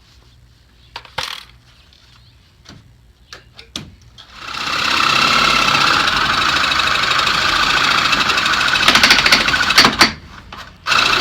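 A reciprocating saw (Sawzall) running and cutting through nails in the trailer's wall framing, starting about four and a half seconds in after a few light knocks. It stops briefly near the end, then starts again.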